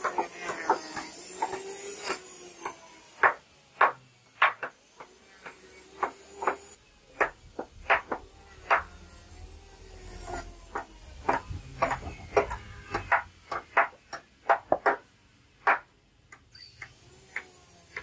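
Hammer blows on a timber frame, sharp irregular knocks, some in quick runs, as nails are driven into the planks of a wooden feeding trough.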